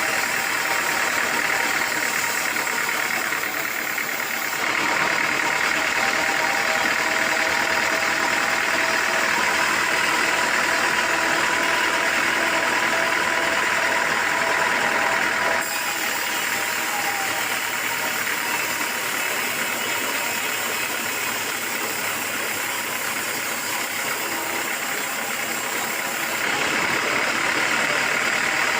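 Sawmill machinery running steadily, a loud mechanical whine with a few steady tones. The sound changes abruptly three times, at about 5, 16 and 26 seconds in.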